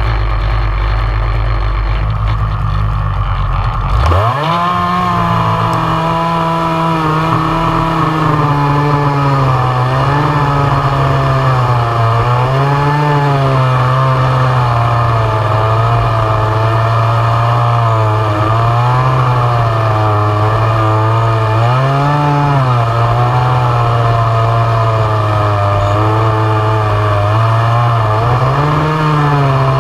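Two-stroke chainsaw idling, then revved to full throttle about four seconds in and cutting through a large log. The engine note sags steadily under the cutting load and briefly climbs again several times as the chain's bite eases.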